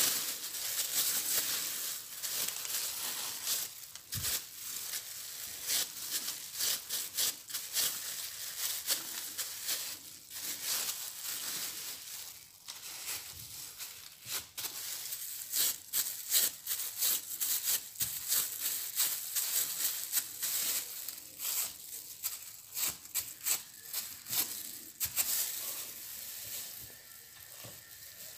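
Disposable plastic gloves crinkling and parchment baking paper rustling as oat cookie dough is rolled into balls and pressed flat on a lined baking sheet: a dense, irregular run of crackles.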